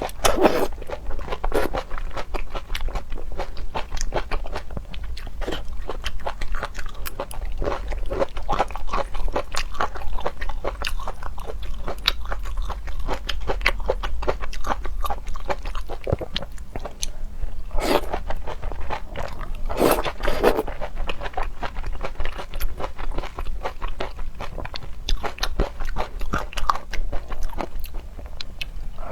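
Close-miked eating of seafood: continual wet chewing with crunching bites, and a few louder bites about 18 and 20 seconds in.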